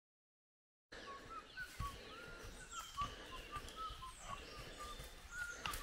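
Silent for about the first second, then forest birdsong: many short repeated chirps and quick, high, sweeping notes from several small birds, over a few faint knocks.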